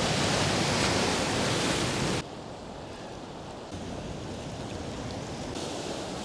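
Pacific surf breaking and splashing against coastal rocks as a loud rushing wash that stops abruptly about two seconds in. A softer, steady wash of waves follows.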